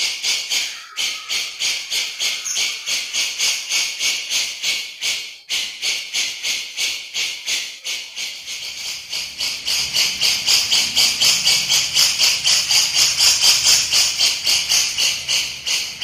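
Cucak jenggot (grey-cheeked bulbul) giving its besetan: a harsh, rattling chatter repeated in quick pulses, about two or three a second, growing louder about ten seconds in.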